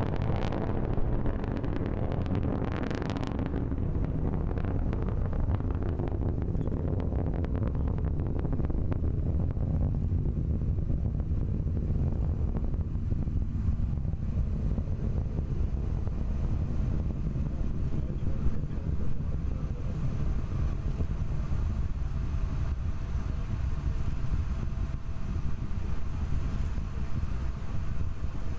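Atlas V rocket engines heard from the ground during ascent: a steady, deep noise with crackling in the first few seconds.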